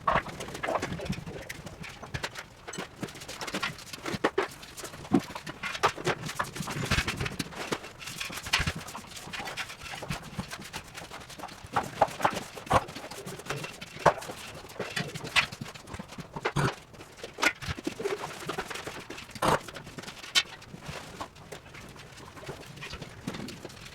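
Irregular knocks, taps and clatter, as of panels and metal parts being handled while a prefab walk-in refrigerator is dismantled.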